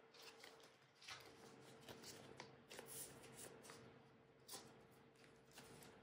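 Faint rustling and soft scraping of photocards and plastic binder sleeves being handled as a card is slipped into a pocket, in scattered small brushes over a faint steady hum.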